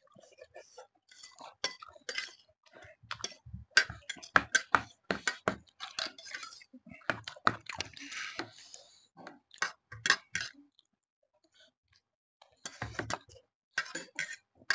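Close eating sounds of chowmein and spiced cucumber: chewing and many short crisp crunches, with utensils clinking on plates. There is a brief lull about eleven seconds in, then a few more bites.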